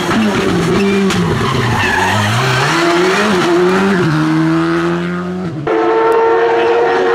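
Škoda Fabia RS Rally2's turbocharged four-cylinder engine at full stage pace: its pitch falls off and climbs again under acceleration, with a sharp drop at a gear change about four seconds in. About five and a half seconds in, the sound switches abruptly to another rally car's engine held at steady high revs.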